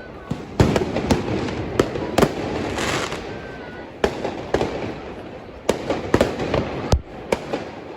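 Street fireworks and firecrackers going off all around: about a dozen sharp bangs and pops at irregular intervals, with a burst of crackling about three seconds in.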